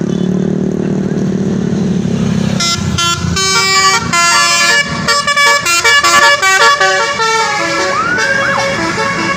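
A bus engine runs, then about two and a half seconds in a Basuri telolet horn plays a quick stepped melody of several tones for about five seconds. Near the end it switches to rising-and-falling siren-like whoops.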